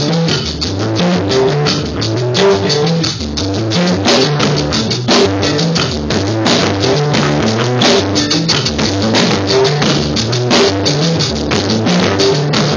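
Live instrumental rock from a small band: a drum kit with busy, closely spaced drum and cymbal hits over a repeating low guitar riff.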